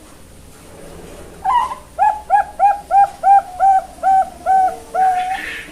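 Young zebra dove (perkutut) singing its cooing song: a rising opening note, a run of about nine short, evenly spaced coos, and a longer held final note.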